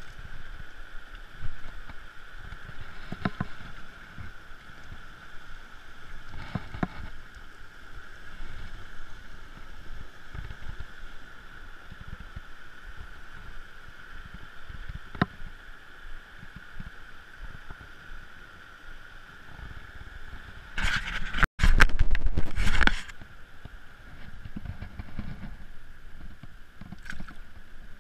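Shallow rocky creek running over stones: a steady rush of water. About three-quarters of the way through, a loud burst of close splashing lasts about two seconds.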